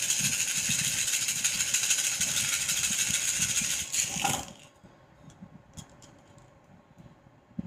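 Cowrie shells shaken together in cupped hands, a dense clicking rattle that stops about four seconds in as they are thrown down onto the table for a reading. A few light clicks follow as the shells are settled.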